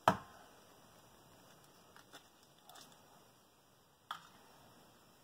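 An egg is cracked against a hard countertop with one sharp knock. A few faint taps follow, and a smaller click comes about four seconds in as the egg is handled over ceramic bowls.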